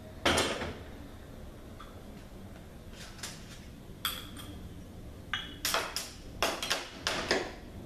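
Steel clutch parts of a ZF 8HP70 automatic transmission clinking and clanking as the E clutch pack is taken apart by hand: a sharp clank just after the start, a few light clinks around three to four seconds in, then a quick run of clinks near the end, some with a short metallic ring.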